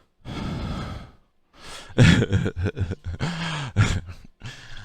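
A person sighing and breathing out heavily, followed by short broken vocal sounds with no clear words.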